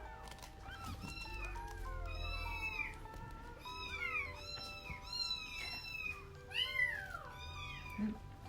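Week-old kittens mewing over and over in short arching cries, several calls overlapping, over background music.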